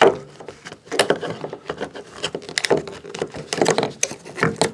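Irregular clicks, knocks and scraping as a Schwintek slideout motor is handled and shifted in its metal mount while being worked out of its bracket.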